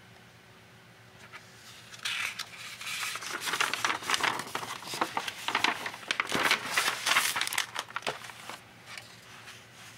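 Paper sketchbook page being turned and handled: a crinkly rustling that starts about two seconds in and dies away near the end.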